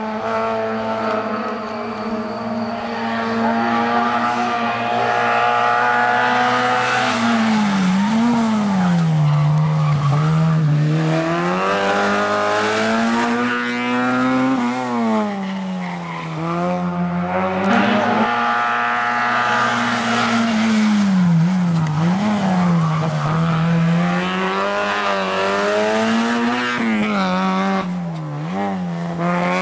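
Autobianchi A112 Abarth rally car's four-cylinder engine at full throttle, its pitch climbing steadily and then dropping off sharply over and over as the driver shifts gear or lifts for the bends.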